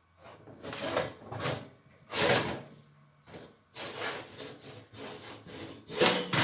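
Oven bottom heating element on its sheet-metal plate being pulled out of the oven base, scraping and rubbing against the frame in a series of short strokes. The loudest scrapes come about two seconds in and near the end.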